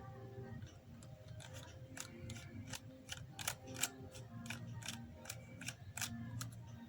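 Small, irregular clicks of a precision screwdriver working the two tiny bottom screws beside the iPhone X's charging port, starting about a second and a half in. Faint background music runs underneath.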